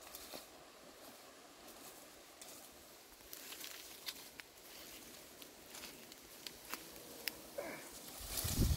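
Faint scattered clicks and light rustles, a few sharp ticks a second in the latter half, with a low rumble rising near the end.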